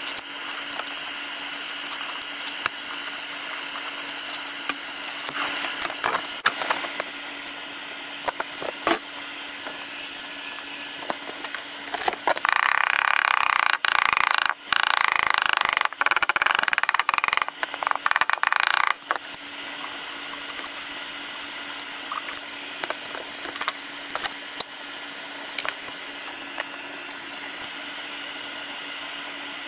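Scattered knocks, taps and handling sounds of materials being set down and pressed onto a floor, over a steady faint hum. About twelve seconds in, a loud harsh rasping noise starts; it breaks off briefly and stops about seven seconds later.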